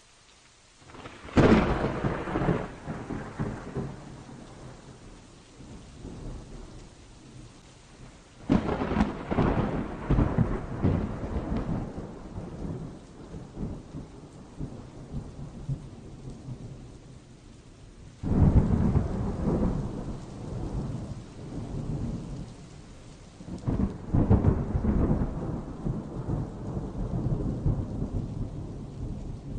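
Four thunderclaps in a thunderstorm, each a sudden crack that rolls into a long, low rumble. The first comes about a second in, then one at about 8 seconds, 18 seconds and 24 seconds. Steady rain hisses underneath.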